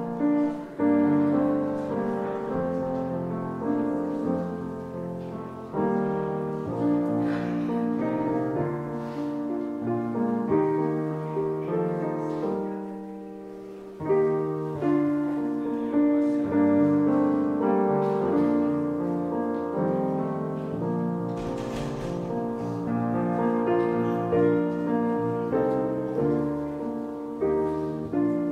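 Piano playing a slow piece in sustained chords, each note fading after it is struck. It softens about halfway through, then comes back in fuller.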